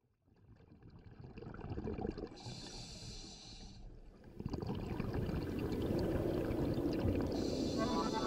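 A scuba diver breathing through a regulator underwater: a hiss of inhalation, then a louder rumble of exhaled bubbles, then another inhalation hiss near the end.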